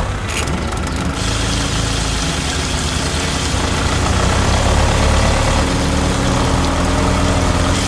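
A small engine idling steadily, a low even rumble, with a hiss over it that stops about a second in.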